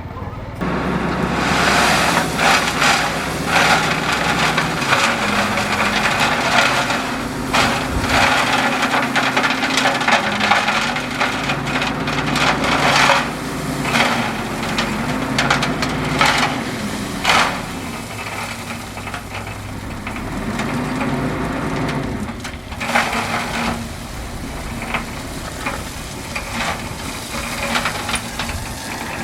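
Bulldozer's diesel engine working under load, its pitch dipping and recovering again and again, with frequent sharp cracks and crunches of gravel and rock being pushed.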